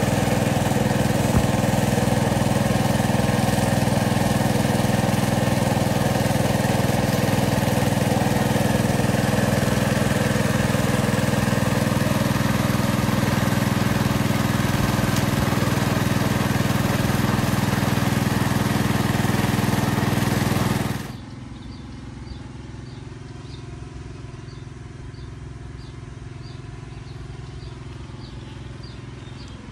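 Small engine running steadily at one speed, cut off abruptly about two-thirds of the way through; after that, a quieter background with a faint high chirp repeating about twice a second.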